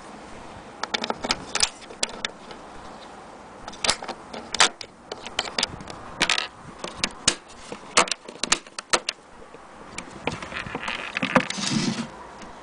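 Irregular sharp clicks and clattering knocks from the metal latches and lid of a sewing machine carrying case being handled and opened. About ten seconds in comes a longer scraping rustle.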